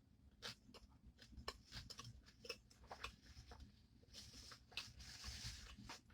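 Faint, close-miked chewing of a sandwich: small irregular wet clicks and soft crunches of food in the mouth, with a soft hiss near the end.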